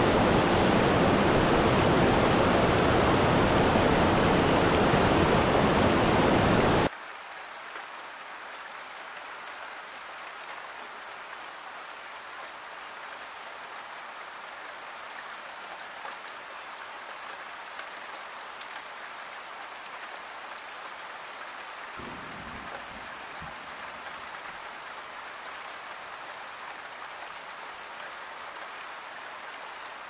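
A mountain waterfall rushing over rocks, loud and steady, cuts off abruptly about seven seconds in. It is replaced by quieter steady rain falling on spruce trees, with faint ticks of drops. A low rumble joins about two-thirds of the way through.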